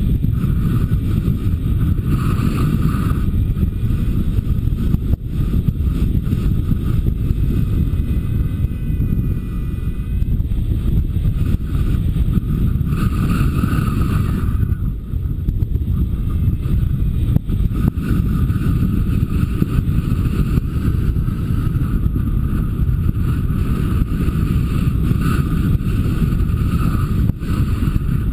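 Wind rushing over the camera microphone in paraglider flight: a steady, loud, low rumble of airflow.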